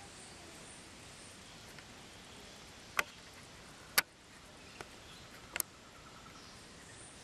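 Quiet outdoor background with faint high chirps, broken in the middle by four sharp clicks, the first two loudest and about a second apart.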